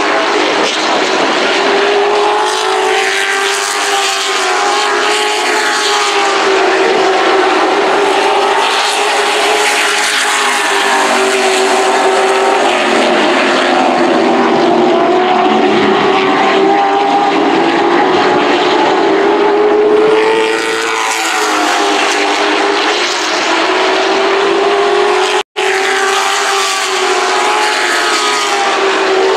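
Several super truck race engines running hard together on the track, their pitch rising and falling as the trucks accelerate, lift and pass. The sound cuts out for an instant near the end.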